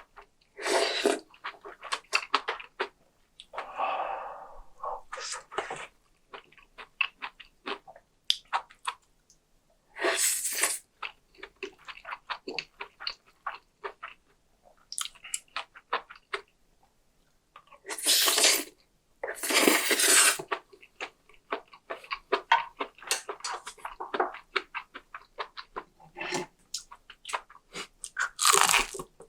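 Close-miked eating: a steady run of wet chewing and mouth clicks, broken about half a dozen times by a loud slurp lasting under a second.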